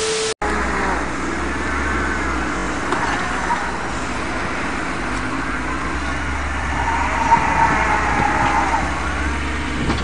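A brief burst of TV-static transition noise with a steady tone, then a semi-truck's diesel engine running hard under load. Its drive wheels are spinning on snow as it struggles for traction.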